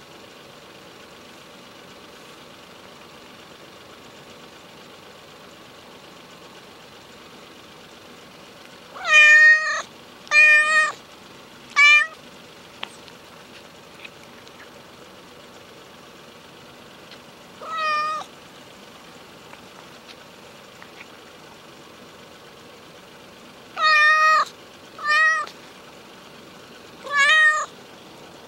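Hungry ginger stray cat meowing: three meows in quick succession, a single one a few seconds later, then three more near the end.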